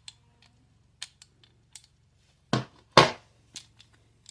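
Metal hand tools clicking and clacking while a rusted knock sensor stud is gripped and turned, with scattered light clicks and two louder sharp clacks about two and a half and three seconds in.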